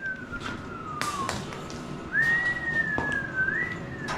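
A person whistling two long, sliding notes: the first falls slowly, the second rises, dips and rises again before falling. A few light knocks come along with it.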